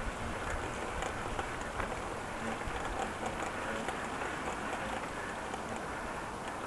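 Steady rushing noise of riding a bicycle: wind on the microphone and tyre noise, with scattered light ticks.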